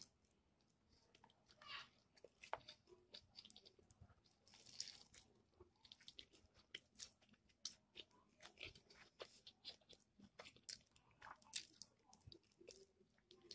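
A man eating crispy fried chicken close to the microphone: faint crunching and wet chewing, with many short irregular clicks and crackles as he bites and pulls the meat from the bone.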